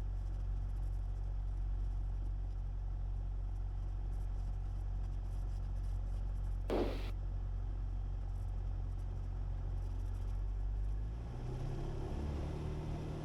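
Cessna 172's piston engine droning steadily in the cabin at the start of the takeoff, its note changing about eleven seconds in. A single short click comes about seven seconds in.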